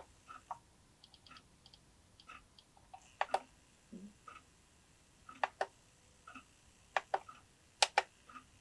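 Sharp clicks, several in quick pairs, with short faint buzzing blips between them, from working an RC transmitter and servos while setting the throttle end stops.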